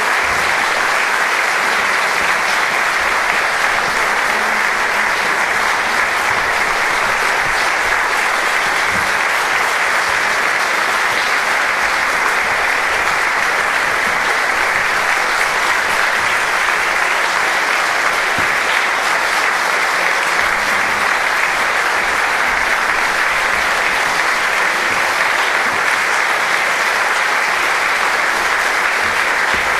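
Audience applauding, a steady, unbroken clapping that neither builds nor fades.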